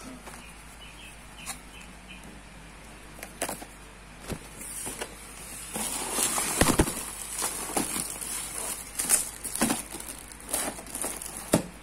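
Cardboard box and plastic packaging rustling and crinkling as items are handled and pulled out, with scattered clicks and knocks. The rustling gets busier and louder about halfway through.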